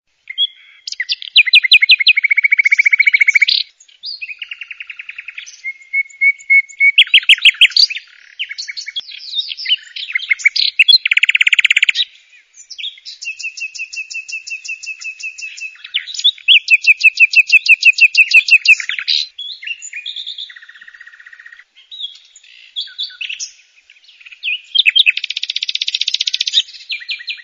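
Songbird singing a long, varied song: fast repeated trills, held whistled notes and buzzy chirps, switching to a new phrase every second or two with brief pauses between.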